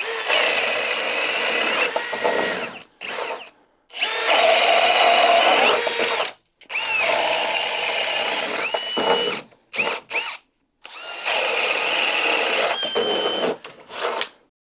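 Four cordless hammer drills (Ridgid, Milwaukee, Bosch and DeWalt) in drill mode, one after another, each boring a 1-5/8-inch Irwin Speedbor spade bit through a wooden beam. Each run is a steady high motor whine with the bit chewing through the wood and lasts about two seconds, with short gaps between runs.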